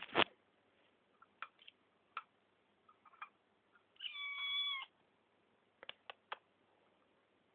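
A young kitten meows once, a call just under a second long and steady in pitch, about four seconds in. Around it come scattered light clicks and taps at the food dish, with a brief cluster of louder clicks right at the start.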